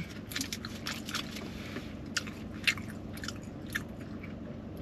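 Close-miked chewing of a mouthful of burrito: moist mouth clicks and smacks, with a few sharper clicks now and then.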